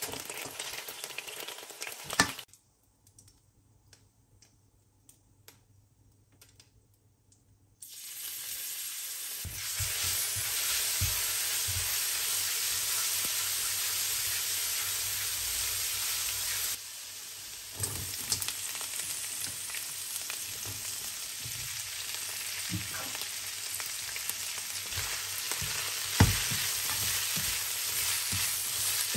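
Oil sizzling in a wok while pieces are lifted out with tongs, a sharp clack, then a few seconds of near silence. Garlic then sizzles loudly in hot oil. Later, shredded cabbage, carrots and peppers sizzle as they are stir-fried with a spatula, with scrapes and clacks against the pan.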